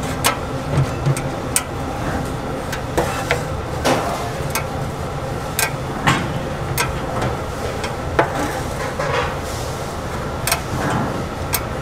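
Irregular sharp clinks and knocks of metal egg-bread baking pans and tongs being handled, about a dozen over several seconds, over a steady low background hum.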